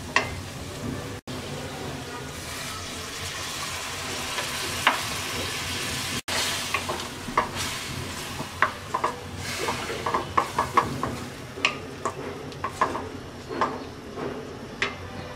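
Wet spice masala sizzling in a stainless steel kadai as it is stirred and cooked down with a little water, a wooden spatula scraping and knocking against the pan many times, most often in the second half. The sound drops out for an instant twice.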